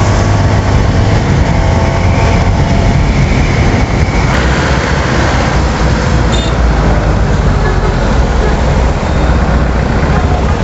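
CFMOTO 300NK motorcycle's single-cylinder engine running while riding on the road, under a steady rush of wind noise.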